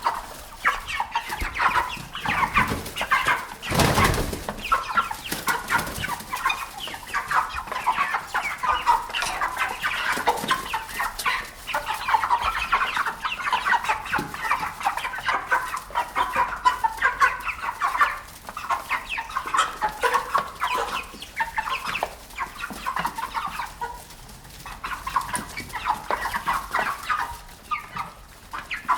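Domestic hens clucking, many short calls overlapping without a break, as from a flock. A brief loud noise breaks in about four seconds in.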